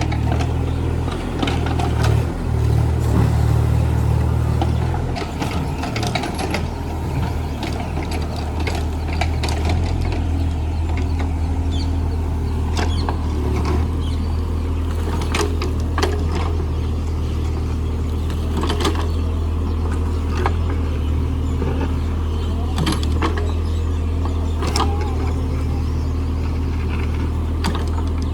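Mini excavator's engine running steadily as it works, with scattered sharp clanks and knocks from the bucket and arm as it digs pillar footings.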